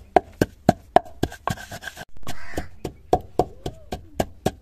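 Wooden pestle pounding dried coriander seeds in a mortar: quick, even knocks, about four a second. A little past two seconds in the pounding stops for under a second while a louder sound breaks in, then the knocks resume.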